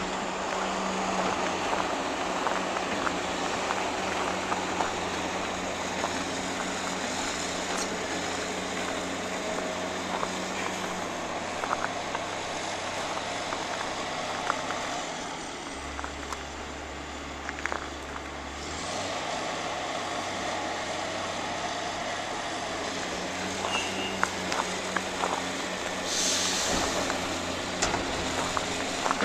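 Heavy diesel machinery running steadily, with scattered knocks and clanks. It drops lower for a few seconds past the middle, and a short hiss of air comes near the end.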